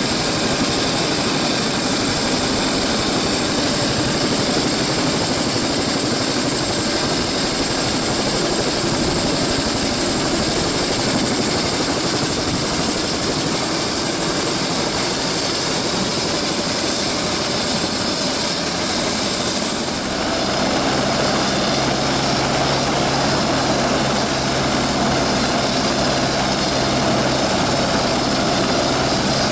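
Helicopter running at close range: a high steady turbine whine over the loud rotor and engine noise. About twenty seconds in, the sound shifts and a low steady hum joins it.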